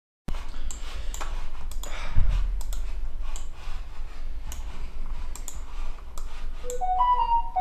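Typing and clicking on a computer keyboard, irregular clicks over a low hum. Near the end a short electronic chime of a few notes sounds: an incoming message notification on the computer.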